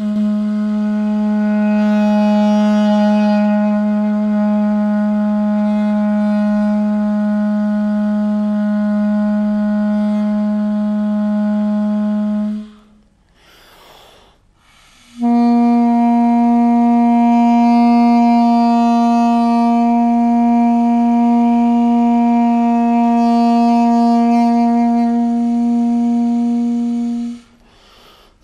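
Diatonic birbynė, a Lithuanian reed pipe with a flared bell, playing two long held notes as a long-tone exercise. The second note is a step higher and follows a pause of about two seconds.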